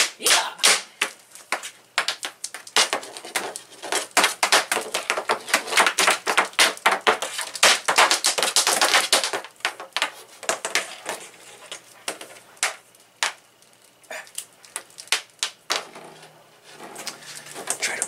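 Rapid, irregular clicking and knocking of stiff Romex electrical cable being yanked and twisted by hand and knocking against a tabletop, as the wires held in a wire nut are strained. The clicks thin out over the last few seconds.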